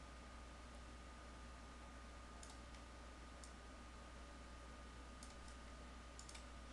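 Near silence: faint room tone with a steady hum, and a few faint, sharp computer mouse clicks scattered through it.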